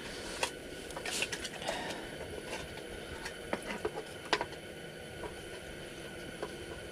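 Portable propane heater hissing steadily, with scattered light clicks and ticks from handling fishing line and tackle.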